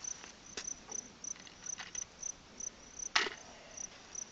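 Crickets chirping steadily, a high chirp repeating about two to three times a second. A few sharp clicks sound over it, with one louder clack about three seconds in.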